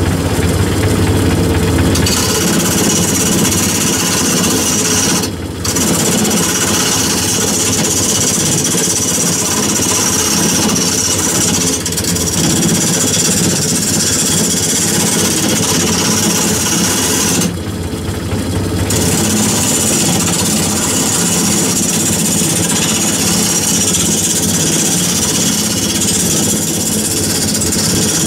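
Wood lathe spinning a large wooden blank while a gouge cuts into it, a loud steady rough cutting noise as the blank is turned down and shavings fly off. The noise drops briefly twice, about five seconds in and again for a second or so past the middle.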